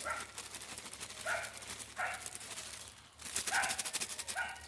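A dog barking, about five short barks spread out, over the crinkle and rustle of a plastic bag of flour being emptied.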